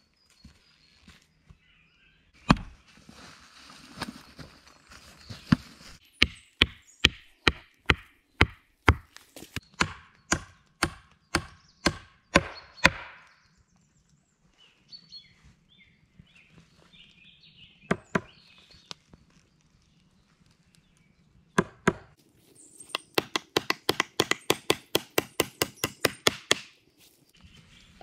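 Hatchet chopping wood: single sharp strokes, then a steady run of chops about two a second. After a pause comes a quicker run of lighter strikes, about four a second, near the end.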